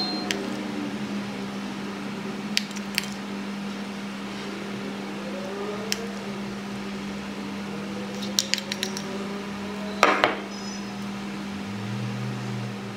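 A spoon clinking lightly against a plate and bowl while serving food: a few scattered light clicks, then a louder scrape-and-knock about ten seconds in, over a steady low hum.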